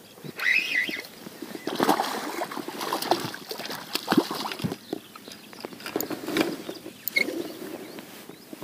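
A hooked fish splashing and thrashing at the surface beside an inflatable boat as it is reeled in and lifted out, with irregular splashes and the clicks and knocks of a spinning reel being cranked and handled.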